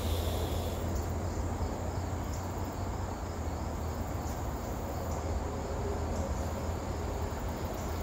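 Faint chorus of singing insects, a steady high trill, over a steady low hum.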